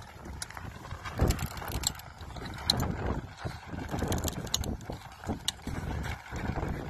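High-lift farm jack being pumped by its handle, its steel pins and pawls clicking and clanking in uneven steps as it lifts the wooden skid of an ice shack.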